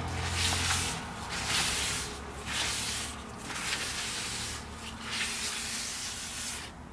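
Wad of kitchen paper towel rubbing across the wet surface of a waterproof folding map in repeated hissing strokes, wiping the water off.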